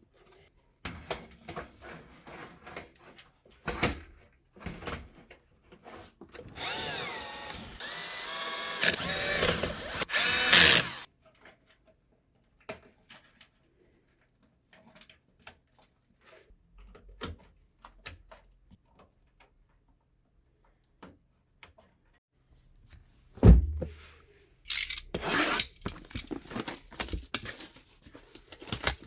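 Small electric screwdriver running for about four seconds, its motor whine wavering in pitch, among scattered clicks and knocks of parts being handled. A single sharp thump comes a little past the middle, and busy handling noise fills the last few seconds.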